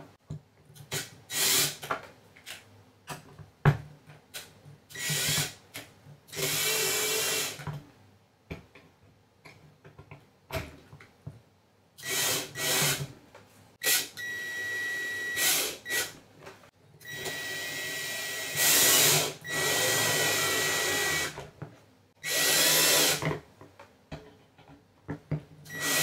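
Ridgid cordless drill driving screws into a Mac Pro processor board, in about seven short runs of one to four seconds each, with light clicks of handling between them.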